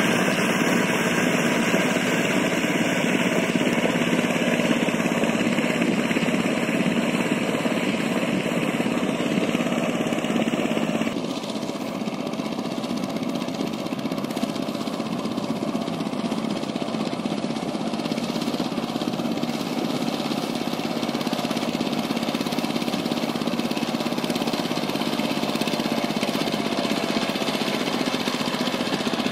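Power tiller's single-cylinder diesel engine chugging steadily under load as it drives its rotavator through flooded mud. About eleven seconds in, the sound turns duller and a little quieter.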